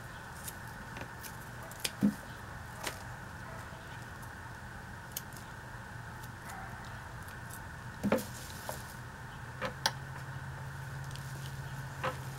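Hand pruning shears snipping through ginger stalks: scattered sharp snips and clicks a second or a few seconds apart, the loudest about two seconds in and again about eight seconds in, over a steady low background hum.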